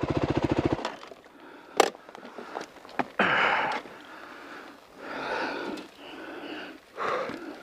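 Suzuki dirt bike's engine running with an even pulse, then cutting out just under a second in. After that, hard breathing close to the helmet microphone, with a few sharp clicks and knocks.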